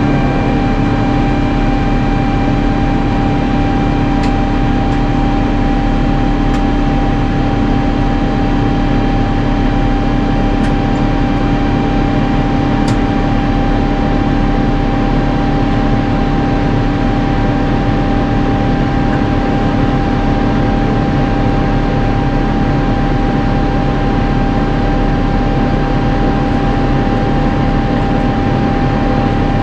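Airbus A350-900 cabin noise in the climb after takeoff: the steady rush of air and the drone of its Rolls-Royce Trent XWB jet engines, with a steady hum tone running through it.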